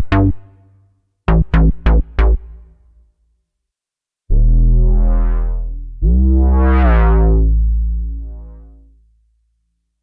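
Roland Juno-60 software synthesizer playing low bass patches: four short staccato notes, then two long held notes whose brightness swells and falls as the filter opens and closes, the second one fading out slowly.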